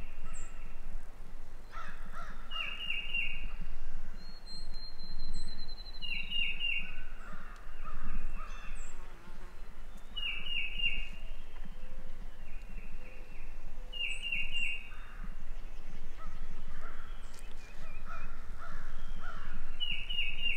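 A songbird singing a short phrase of three or four quick high notes, repeated about every four seconds, with another bird's thin held whistle about four seconds in.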